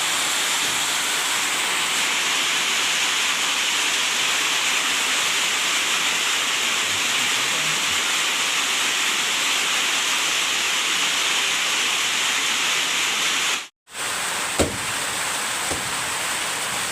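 Heavy rain pouring down, a steady loud hiss. It cuts out for an instant about fourteen seconds in and resumes.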